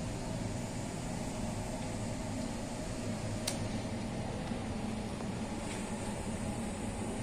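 Steady hum and hiss of bakery machinery running, with one sharp click about three and a half seconds in.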